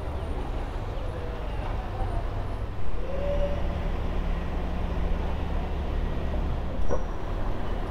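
Buses and traffic: a steady low engine rumble, with a brief louder sound about three seconds in and a sharp knock near the end.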